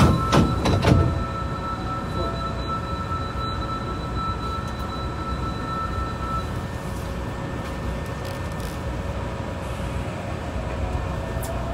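Hankyu 3300-series train standing at a station with its doors just closed: a few loud thuds about half a second to a second in, then the stopped car's steady hum, with a thin steady tone that stops about halfway through.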